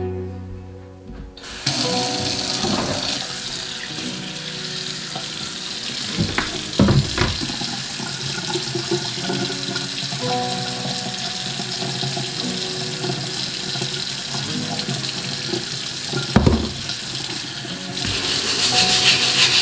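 Kitchen faucet running into a stainless steel sink and splashing over a cutting board, starting about a second and a half in, with a couple of sharp knocks along the way. Near the end a bristle brush starts scrubbing the wet board.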